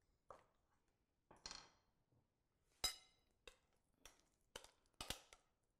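Faint, scattered clinks and knocks of a spoon against a glass mixing bowl as thick squash purée is scooped out into a baking tray. There is one sharper, ringing clink a little under halfway through.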